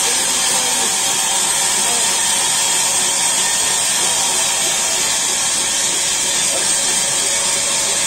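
Sawmill machinery running: a steady, loud hiss with a high whine over it, unchanging throughout.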